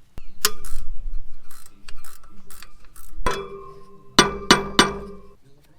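Hand tools working on an engine's cooling fan: a quick run of ratchet clicks and knocks, then metal clanks that ring, with three sharp strikes near the end. The fan is being worked loose with the drive belt already off, so nothing holds the pulley still.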